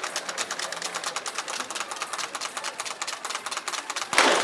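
Audience clapping in a fast, even patter, then a single sharp .22 sport pistol shot near the end.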